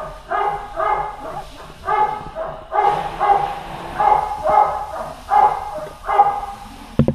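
Young puppies crying in short, high-pitched yelps, about two a second. There is a thump near the end.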